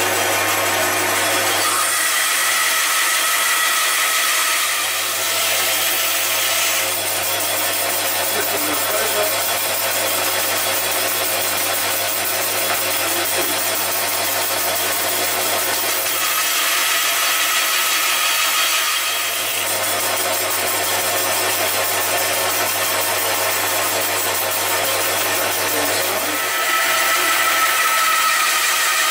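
Band saw running and ripping the cuts for an open mortise in a timber rail: a steady rasp of the blade through the wood over a low motor hum, with a higher whine that comes and goes a few times.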